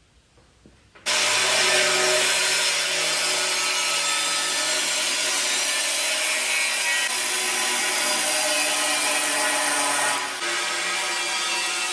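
An angle grinder starts about a second in and runs steadily under load on metal, with a slight drop in level near the end.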